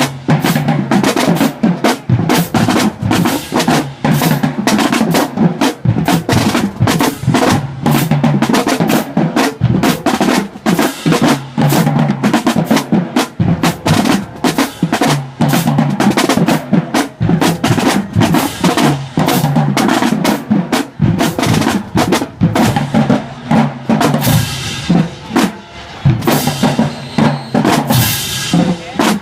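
High school marching band drumline playing a fast march cadence: rapid snare rolls and strokes over pitched bass drums, with cymbal crashes near the end.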